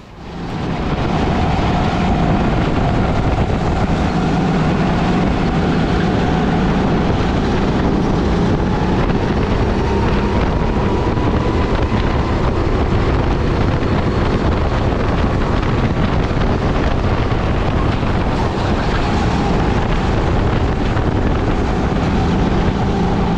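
A Sodikart rental kart's engine running flat out on track, heard from onboard with wind rushing over the microphone. The engine note drifts up a little midway, as the kart gathers speed on a straight.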